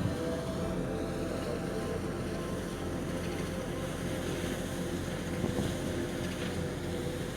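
Ship's engine running steadily, a low hum with several held tones, with wind on the microphone.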